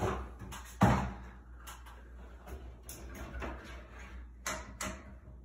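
Knocks and clicks of a ceiling exhaust-fan vent cover being handled and pulled down on its spring clips, with one sharp knock about a second in.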